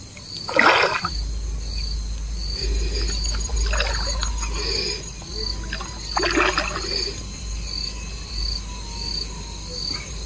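A large hooked fish thrashing and splashing at the water's surface while being played on a rod, three splashes, the first the loudest. An insect chirps steadily at about two pulses a second behind it, over a low rumble.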